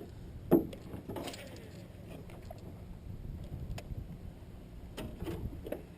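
Handling noise in a fishing boat: a few sharp knocks and clicks, the loudest about half a second in, over a steady low hum.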